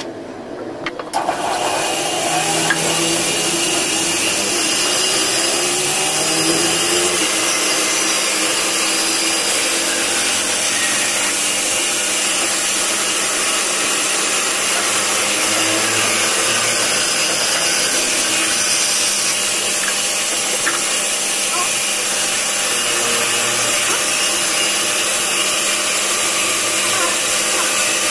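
Bandsaw running and ripping through a thick block of willow, a loud steady whine that starts suddenly about a second in.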